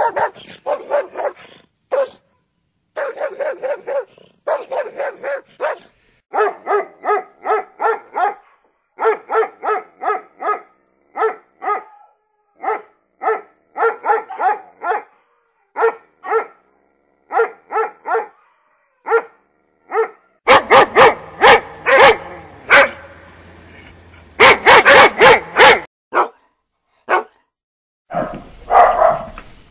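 Dogs barking in several back-to-back recordings: quick runs of barks, then single barks about one a second, then louder, faster barking over a steady background hiss from about twenty seconds in.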